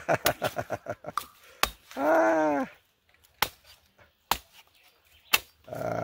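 Machete chopping open a drinking coconut: a quick run of light taps, then single sharp chops about a second apart. A short voiced cry that rises then falls comes about two seconds in.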